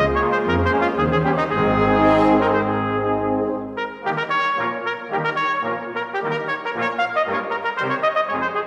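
Wind orchestra with prominent brass playing a scherzando movement: a loud, full passage over sustained low bass that, about four seconds in, thins to lighter, short detached notes without the bass.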